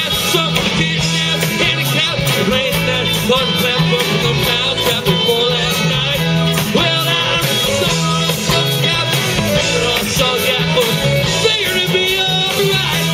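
Rock band playing live: electric guitars, keyboard and a steady drum beat, with singing over them.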